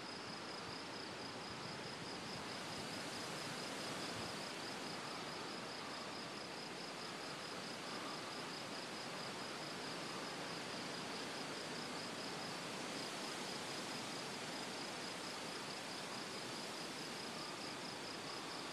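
Night insects, crickets among them, chirping steadily: a fast, even high chirp over a soft hiss of other insects.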